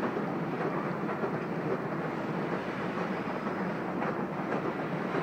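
Freight train rolling across a tall steel trestle viaduct: the wheels on the rails and the steel structure make a steady, unbroken rolling noise.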